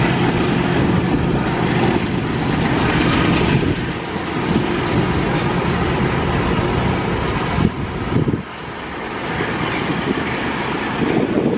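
Double-stack container freight train rolling past: a steady, loud rumble and rush of the wagons' wheels on the rails, dipping briefly about eight seconds in.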